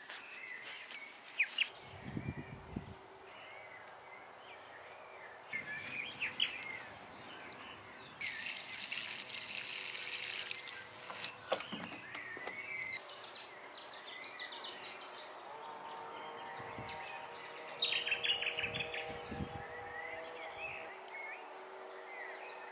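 Garden birds chirping and calling on and off throughout. About eight seconds in comes a hissing rush lasting about three seconds. A few soft low knocks are heard, and a faint steady hum sets in during the second half.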